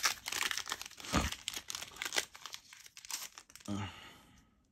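A foil Yu-Gi-Oh booster pack being torn open and crinkled by hand: a dense run of crackling and tearing for about three and a half seconds, which then stops.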